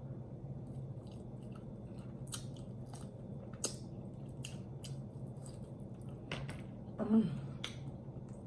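A person chewing and eating sauce-covered chicken, with scattered wet mouth clicks and smacks over a steady low hum; a brief voiced sound about seven seconds in.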